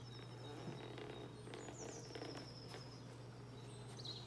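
Faint rustling and soft taps of heavy book pages being handled, while a bird sings a short high phrase that steps down in pitch, once about a second and a half in and again near the end. A steady low hum lies under it all.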